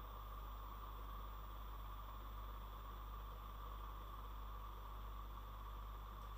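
Faint steady hiss with a low hum underneath: room tone and microphone noise, with no distinct sounds.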